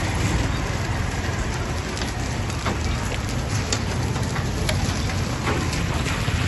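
Hail and rain falling on a wet road: a steady hiss with many sharp ticks of hailstones striking the pavement, over a low rumble.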